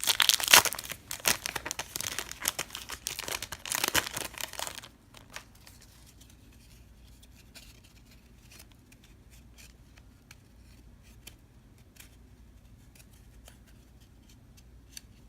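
A baseball card pack's wrapper being torn open and crinkled for about five seconds, then the faint scattered clicks of cards being handled and flipped.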